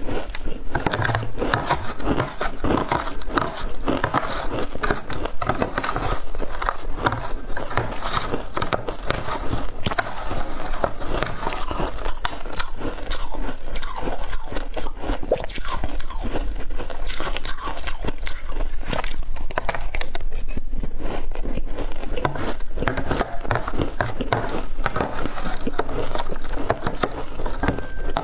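Crunching and biting through mouthfuls of frozen shaved ice in quick, crackly chews, with a metal spoon scraping the glass dish as more is scooped.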